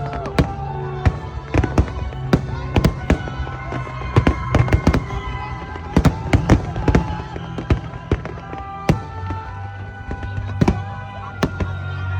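Fireworks display: many shells bursting in quick, irregular bangs and crackles, with music playing underneath.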